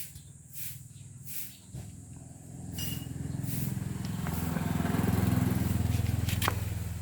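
A motor vehicle engine running, swelling in level from a few seconds in and easing again near the end, with a few short hissing strokes before it.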